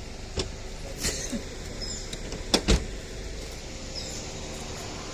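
Car door being opened and shut, with a few clicks and then two sharp knocks about two and a half seconds in, over a steady low hum.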